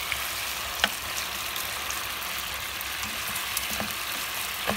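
Pork shoulder steaks frying in hot fat in a nonstick pan: a steady sizzle with small crackling pops. A sharp click comes about a second in and another near the end.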